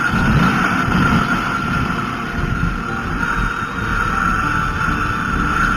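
Snowmobile engine running steadily under way, with wind buffeting the microphone.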